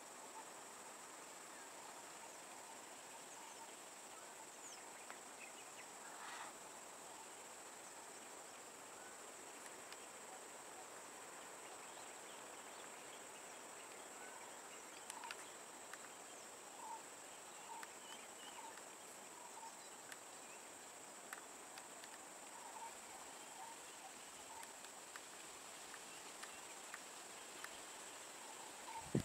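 Faint outdoor ambience: a steady high-pitched insect drone, with scattered faint short chirps in the second half.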